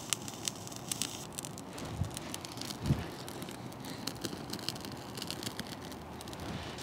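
Dry birch bark crackling and popping with irregular sharp snaps as it catches from a lighter flame. Two dull low bumps come about two and three seconds in.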